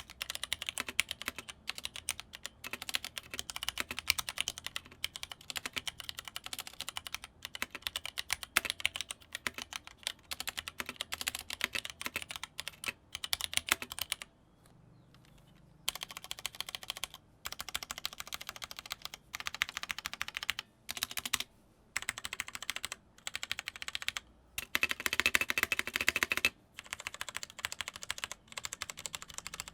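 Fast typing on a Leopold FC660M mechanical keyboard with linear Cherry MX Red switches: a dense stream of keystroke clacks, with a pause about halfway through and a few shorter breaks near the end.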